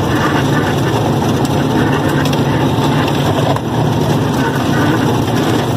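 Diesel truck engine running steadily with road noise, heard from inside the cab as the truck drives along a rough dirt road.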